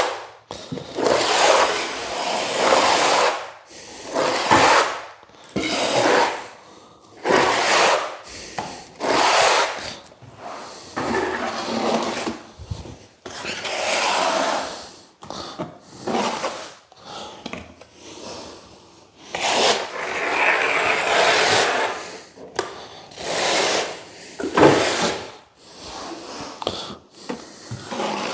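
Repeated rasping scrapes of a hand tool dragged over a hard surface, in uneven strokes of about a second or two with short gaps between them.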